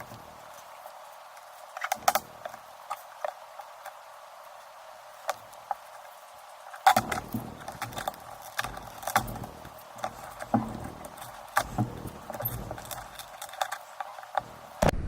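A pry tool working shards of cracked iPad mini digitizer glass off the frame's corner: scattered small clicks and ticks of glass and tool, coming thicker with light knocks and handling thumps in the second half.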